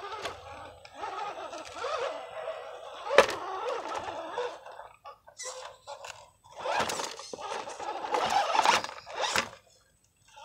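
Radio-controlled scale rock crawler's electric motor and drivetrain whining, rising and falling in pitch as the throttle is worked while it climbs over rocks, with tyres scraping and one sharp knock of the truck against rock about three seconds in. Louder bursts of whine and scraping come in the last few seconds, then it stops.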